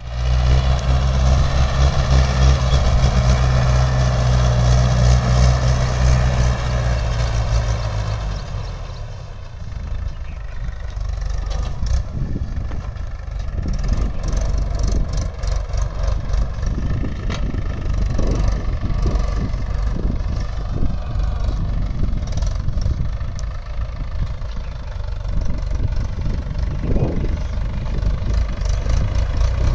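Mahindra 575 DI tractor's four-cylinder diesel engine running steadily under load as it pulls a seed drill. It is loudest for about the first eight seconds, then drops back and runs on more quietly.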